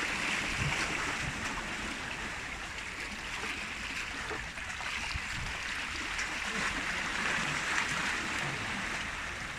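Sea water washing and splashing among barnacle-covered concrete breakwater blocks, a steady rush that swells about a second in and again near the end.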